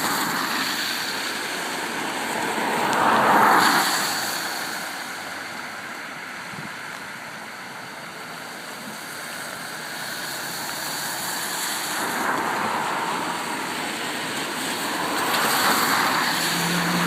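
Cars driving through floodwater on a road, tyres throwing up a rushing wash of water. One passes loudest about three seconds in, and others swell past later.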